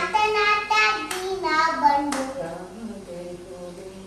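A small girl singing a devotional prayer chant in a high, drawn-out voice, clapping her hands twice in time, about a second apart.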